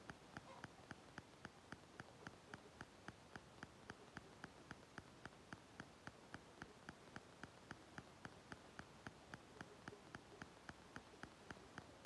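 Faint, even ticking at about three ticks a second.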